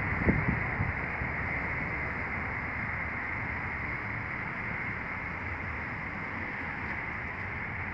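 Steady outdoor background noise with low wind rumble, and a few soft low bumps just after the start.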